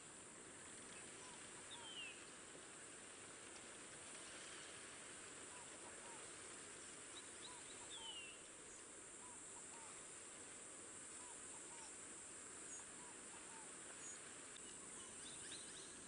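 Faint natural ambience: a steady high insect drone with soft, short bird notes repeated mostly in pairs, and two brief descending whistles about two and eight seconds in.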